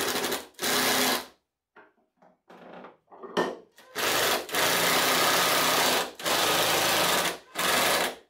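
Cordless impact driver driving screws into plywood in bursts of rapid hammering. There is a short run at the start and another about a second in, then a few light knocks, then from about four seconds in several runs of a second or more with brief stops between them.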